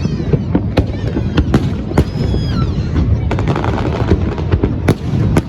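Fireworks bursting: an irregular run of sharp bangs over a continuous low rumble, with the strongest bangs about two seconds in and near the end.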